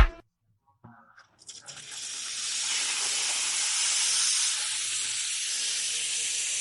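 Steam wand of a 3211 double-group espresso machine opened during a test run, releasing a steady hiss of steam that builds over about a second and then holds.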